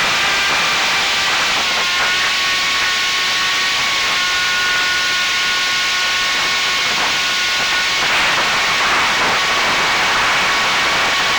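Electric motor and propeller whine of a ZOHD Drift FPV plane in flight, heard through the onboard Runcam Split 3 camera's microphone under a steady rush of wind hiss. The whine shifts pitch several times, with a step near the middle and another about two-thirds of the way through.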